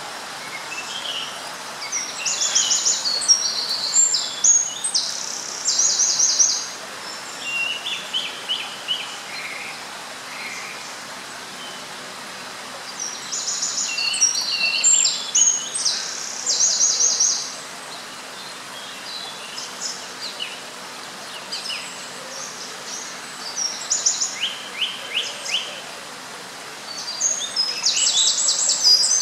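A songbird singing in repeated phrases of rapid, high trills a few seconds long, with pauses of several seconds between phrases, over a steady background hiss.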